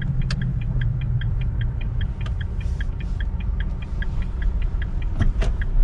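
Turn-signal indicator ticking rapidly and evenly over the low hum of the motorhome's engine as it turns in, with a sharper knock about five seconds in.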